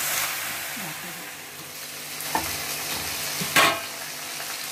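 Diced potato and eggplant sizzling in hot oil in a kadai while a spatula stirs and scrapes them against the pan. A few light knocks and one louder clatter about three and a half seconds in.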